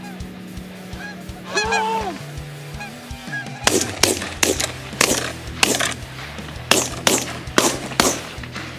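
Canada geese honking: one drawn-out call about a second and a half in, then a run of loud honks, about two a second, from around the middle on, over background music with a steady low bass line.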